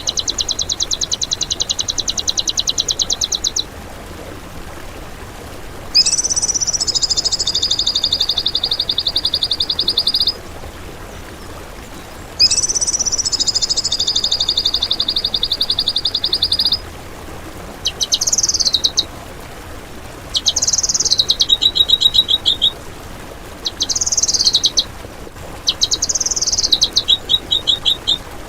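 A songbird's recorded song: loud, high-pitched, rapid harsh trills. It comes first in phrases of about four seconds with short pauses, then in shorter, choppier bursts toward the end.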